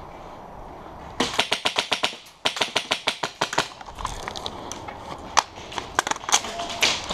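Airsoft gun firing two quick bursts of about ten shots a second, starting about a second in, then scattered single shots.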